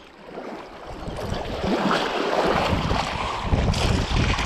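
Waves washing and water splashing at the shoreline, with wind buffeting the microphone; the noise swells over the first couple of seconds and then stays up.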